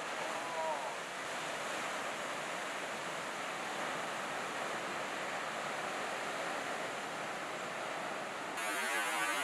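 Steady wash of heavy ocean surf breaking, with wind buffeting the microphone. A brief high call sounds about half a second in, and the sound changes abruptly near the end.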